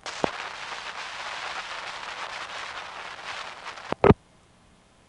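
Crackly hiss of an open, silent telephone line on an old recording: test number 9932 has tripped the ringing and answered with nothing but silence. A sharp click about four seconds in, then near silence.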